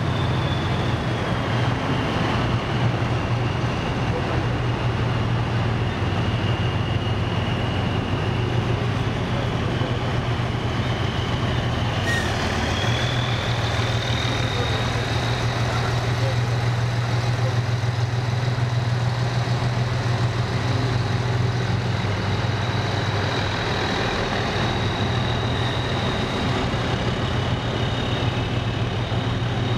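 Diesel engines and tyres of a slow-moving column of heavy military vehicles, led by a sixteen-wheel MZKT-79221 missile launcher carrying its ICBM canister, with a steady deep engine drone. Over it a thin high whine sags in pitch and then rises again about twelve seconds in, and a single sharp click comes at the same moment.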